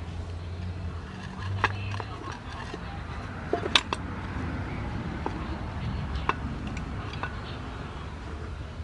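A baby macaque handling a metal pan lid on dirt ground: a few scattered sharp taps and clinks, the loudest just before the middle, over a low steady rumble.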